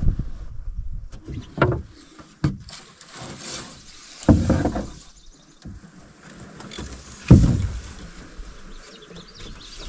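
A canoe being paddled and pushed off in shallow water: a series of separate paddle strokes and knocks against the hull, with water swishing, the loudest about four and a half and seven and a half seconds in.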